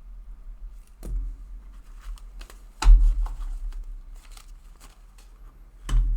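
Paper banknotes being handled and shuffled, with light rustling and clicks, and dull thumps about a second in, about three seconds in and near the end.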